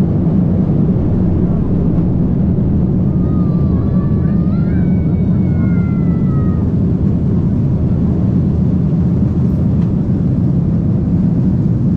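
Steady low drone of airliner cabin noise from inside the passenger cabin. A faint voice rises and falls for a few seconds in the middle.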